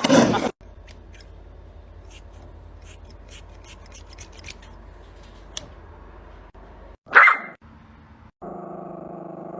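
A dog barks once, short and loud, about seven seconds in, after several seconds of faint scattered clicks over a low hum. A steady droning tone follows near the end.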